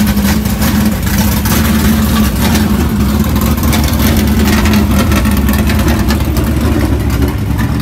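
Side-by-side utility vehicle's engine running steadily as it is driven slowly, heard from the driver's seat, with a busy rattle of small knocks from the cab.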